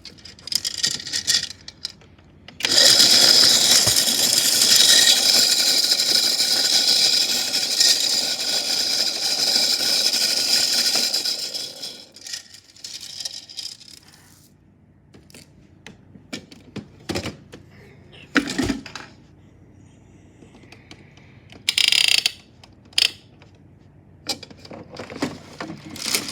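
Toy washing machine running with metal chains rattling inside it, a dense clattering that lasts about nine seconds and then stops, followed by scattered clinks and clicks.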